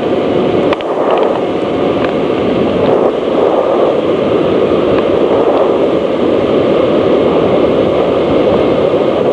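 Steady rush of water flowing through a washout beneath railroad track.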